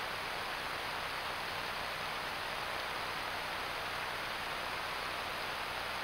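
Steady, even hiss of background noise at a forest stream, with no calls, splashes or other events.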